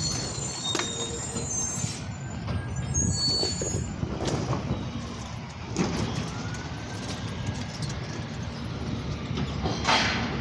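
Garbage truck's diesel engine running, a steady low rumble, with scattered knocks and a short hiss near the end.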